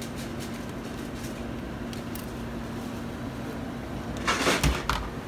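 A steady hum with a constant low tone. About four seconds in, it is broken by a short burst of clattering and a thud, as the sliding lid of an ice-cream freezer case is moved on its metal rails.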